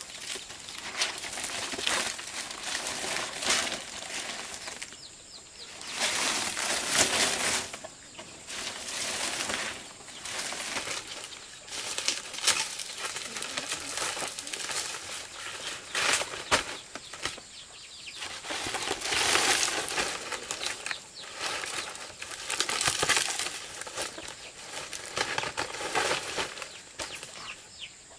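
Large green fan-palm leaves rustling and swishing in repeated bursts as they are handled and laid onto a bamboo roof frame for thatching.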